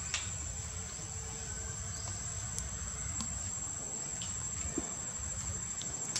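Steady high-pitched insect drone, one unbroken shrill tone, over a low rumble, with a few faint clicks.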